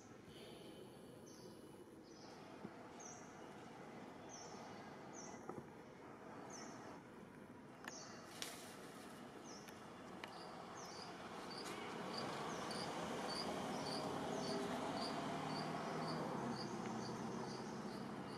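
Repeated short high chirps from a small animal, about one every second and a half at first, then about two a second from around the middle. They sit over a steady outdoor hiss that grows louder in the second half, with a few soft clicks early on.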